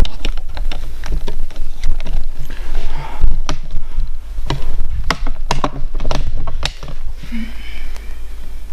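Microphone handling noise as a newly plugged-in Røde shotgun mic and the camera are moved about: a steady low rumble with many sharp knocks and clicks.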